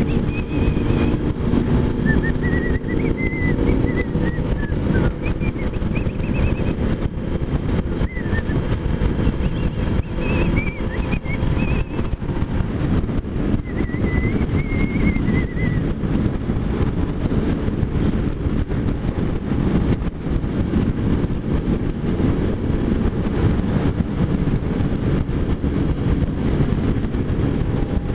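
Kawasaki motorcycle riding at road speed: steady wind rush over the microphone mixed with engine and road noise, with a faint high whistling that rises and falls a few times in the first half.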